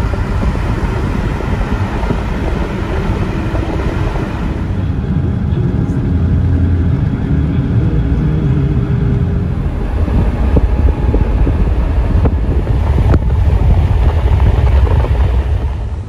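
Steady road and wind noise of a car driving, heard from inside the car: a loud, continuous low rumble with a hiss above it.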